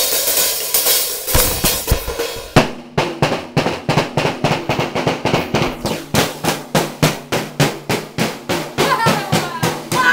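A drum kit played hard and fast. For the first two and a half seconds there is a dense crashing wash of cymbals and drums. After that come rapid, even snare and drum hits, about four or five a second.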